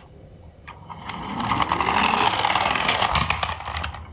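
Toy garbage truck's spring-drive motor gears whirring with a rapid ticking buzz, as the wheels wind the motor and the truck runs off. The buzz swells from about a second in and stops just before the end.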